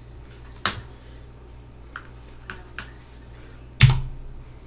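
A few light clicks and handling sounds as the SD card tray is pushed back into a Samsung Galaxy S7 Edge phone, then a louder thump about four seconds in, over a steady low hum.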